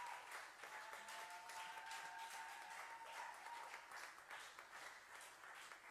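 Faint applause and clapping, thinning out and fading, with a thin steady tone held over the first three seconds or so.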